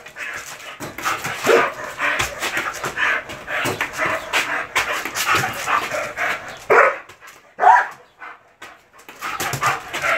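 German shepherd barking aggressively in quick repeated bursts, with a short pause near the end.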